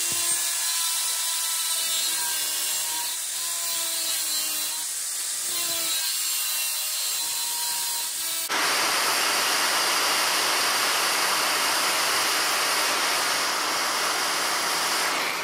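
Power tool cutting sheet metal along scribed lines: a motor whine whose pitch wavers, then, about halfway through, a sudden change to a louder, steady rushing noise.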